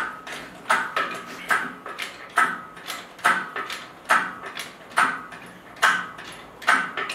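Sharp strikes, each with a short ringing tail, repeating evenly about once every 0.9 seconds.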